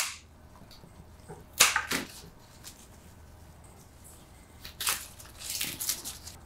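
Cut flower stems and leaves rustling and swishing as they are handled and set into a floral arrangement: a click at the start, a sharp swish about one and a half seconds in, another around five seconds, then softer rustling.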